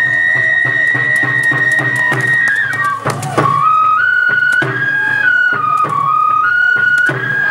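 Bon odori festival music: a flute melody holds one long high note for about two and a half seconds, then steps down and back up through short notes, over a steady beat of taiko drum strokes.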